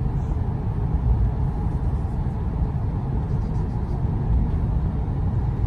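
Steady low rumble of the MTR Vibrant Express (CRH380A-based) high-speed train running, heard inside the passenger cabin.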